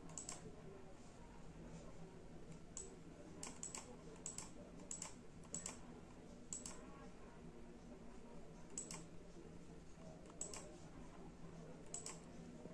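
Computer mouse clicking: about a dozen sharp, faint clicks at irregular intervals, some in quick pairs, as settings are picked in a lighting-control program.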